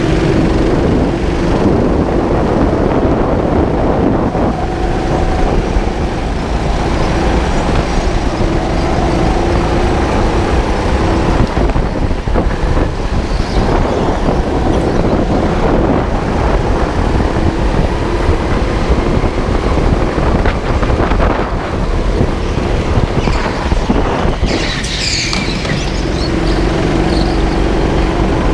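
Go-kart driven at racing speed, heard from on board: a steady motor running under load over constant rumble and rattle from the chassis and tyres on concrete, with a faint hum that fades in and out and a brief high-pitched burst near the end.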